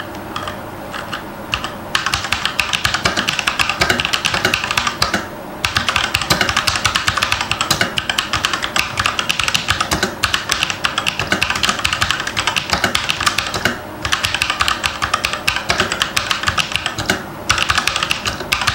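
Fast continuous typing on a Fantech MK853 V2 full-size mechanical keyboard with red switches, a dense clatter of keystrokes that starts about two seconds in and breaks off briefly three times. The red switches are rather noisy, loud enough to disturb others at night.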